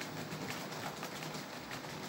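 Märklin model train running along its track: a steady light rattle of the wheels and motor with faint small clicks.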